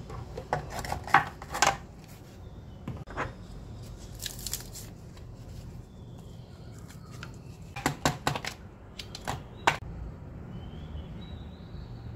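A plastic ice cube tray and its lid being handled as frozen green chilli paste cubes are popped out and dropped onto the plastic lid: scattered sharp plastic clicks and clacks in several short clusters.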